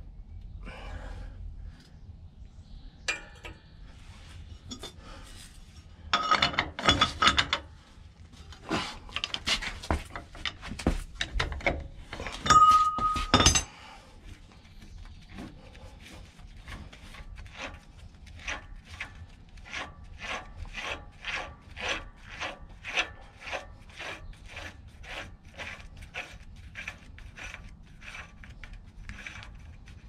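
Steel clinking and scraping as the axle nuts and keyed lock washer are worked off a heavy truck's rear wheel hub, with a brief high squeal about halfway. In the second half comes a long run of regular metallic clicks, about two or three a second.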